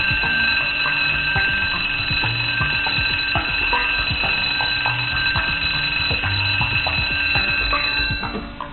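Watertight door's warning alarm sounding steadily while the sliding door is closing, then cutting off just before the end.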